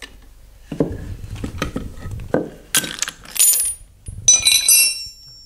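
Ball joint press being wrenched down to push the old trunnion out of an LS3 rocker arm: a few knocks, then bright metallic clinking and ringing twice in the second half as the small steel needle roller bearings of the original trunnion come loose and drop.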